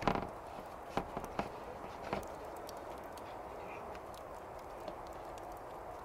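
A handful of soft knocks as a ball of bread dough and hands bump against a wooden cutting board, the loudest right at the start and the rest within the next two seconds, over a steady background hiss.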